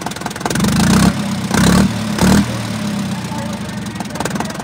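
Tractor engine running at idle with a steady, rhythmic pulse, surging louder three times in quick succession around the middle.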